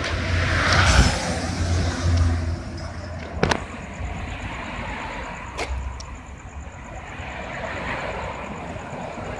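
Street traffic noise, rising and falling as vehicles pass, with a low rumble in the first couple of seconds. Two sharp clicks come about two seconds apart.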